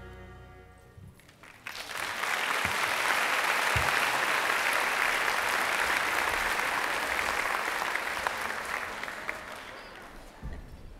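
Audience applauding: the clapping starts about two seconds in, as the last notes of a song die away, holds steady, then fades out near the end.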